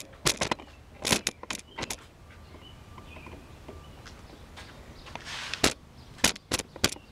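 Footsteps on concrete and camera handling: scattered sharp clicks and knocks in two clusters, with a short hiss between them.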